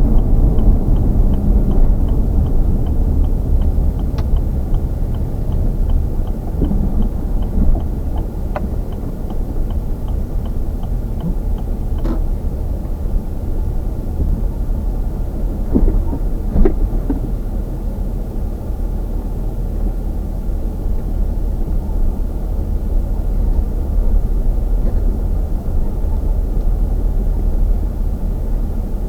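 Steady low rumble of a vehicle travelling along a road, with road and wind noise. A faint regular ticking runs through the first dozen seconds, and a few light knocks come through.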